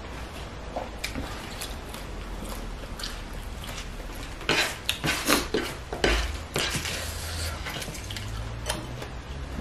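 Fresh leafy vegetables picked up and torn apart by hand. A run of crisp snapping and rustling comes about halfway through, with scattered light clicks before and after.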